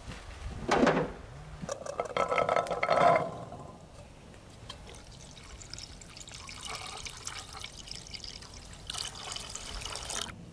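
Water being poured and splashing in two short spells in the first few seconds, the second longer and louder, then fainter noise with a brief hiss near the end.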